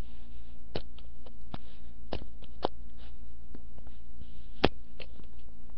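Steady low hum and hiss of a webcam microphone, with a handful of irregular sharp clicks; the loudest click comes about two-thirds of the way through.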